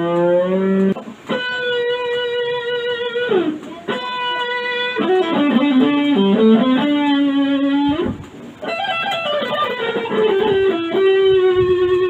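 Electric guitar (Stratocaster) played with distortion: long sustained single notes and bends, with the pitch diving about three seconds in and wavering in a vibrato near the end. This is the guitar being tried out on its repaired tremolo bridge.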